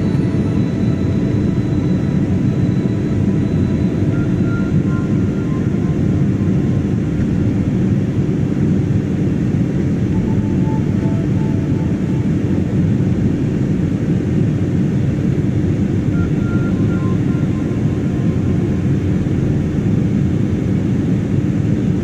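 Cabin noise inside an Airbus A320-family jet airliner in flight: a steady, even drone of the turbofan engines and airflow, strongest in the low range with a constant hum.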